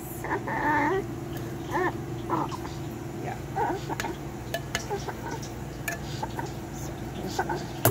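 Metal spoon scraping and clinking against a slow cooker's crock and an enamel bowl as chocolate pudding cake is served out, with a few sharp clinks in the second half. A short high-pitched cry about half a second in is the loudest sound, with a steady low hum underneath.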